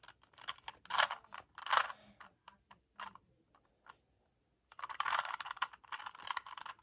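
Rubik's Cube being turned rapidly by hand: quick runs of plastic clicking and clacking as the layers rotate, with a pause of about a second and a half in the middle before the turning starts again.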